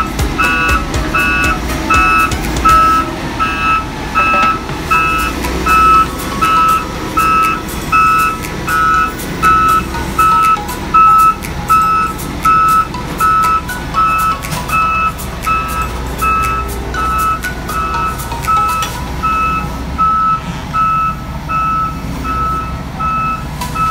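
Travel/reversing alarm beeping steadily, about two beeps a second, over the low running of a Volvo EW205D wheeled excavator's diesel engine as the machine drives.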